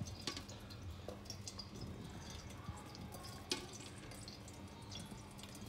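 Thick kadhi being ladled into a glass bowl, faintly pouring and dripping, with a couple of small clicks of the ladle.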